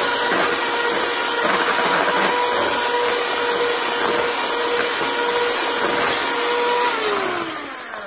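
Bella 10-speed electric hand mixer running steadily with a constant whine, its beaters working thick cake batter. About seven seconds in it is switched off and the whine falls in pitch and fades as the motor winds down.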